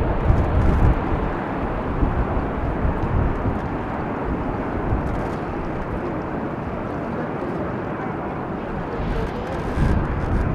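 Jet noise from a Boeing 737 airliner's turbofan engines on final approach, a steady rushing sound as the plane descends away toward the runway. It eases a little in the middle and swells again with a low rumble near the end as it nears touchdown.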